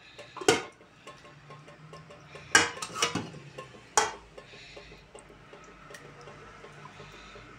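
Metal ladle clinking against a stainless steel pot while thick tomato sauce is scooped out: about five sharp clinks, the last about four seconds in, then only faint sounds as the sauce is tipped into a metal colander.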